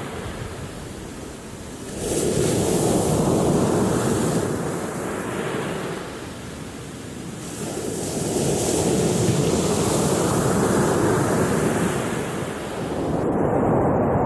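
Sea waves breaking on a pebble beach. The surf rises and falls in three broad surges, each with a hiss at its peak. The high hiss drops out abruptly about a second before the end.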